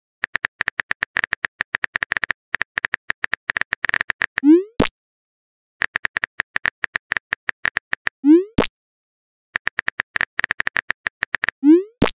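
Phone-keyboard typing sound effect: runs of rapid, even clicks, each ending in a short rising 'bloop' message-sent tone and a sharp click. This happens three times, about every four seconds.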